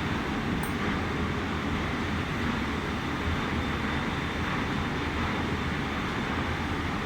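Steady machine-room drone, a constant rushing noise of ventilation or running plant with a faint high whine over it, unchanging throughout.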